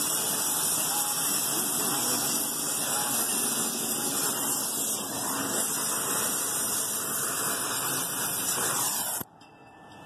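Brazing torch flame hissing steadily at a copper refrigerant line joint while it is brazed, then cut off abruptly near the end.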